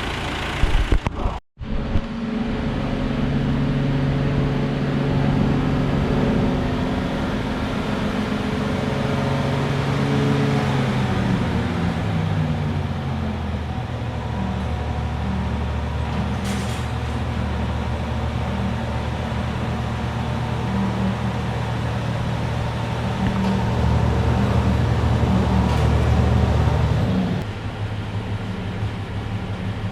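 Tractor diesel engine running while the tractor is driven with a grain cart in tow; its speed drops in steps about ten seconds in, then it runs steadily until the sound drops and changes near the end.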